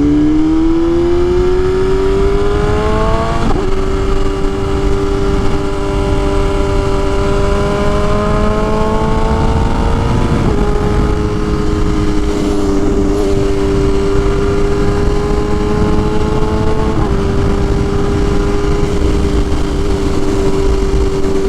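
BMW S1000RR inline-four sportbike engine pulling hard through the gears: the pitch climbs, drops at an upshift about three and a half seconds in, climbs again, drops at a second upshift about ten seconds in, then holds nearly steady at cruise with a small step near the end. Wind rush runs under it.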